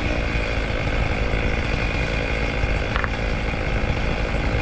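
Engine running steadily, with a short click about three seconds in.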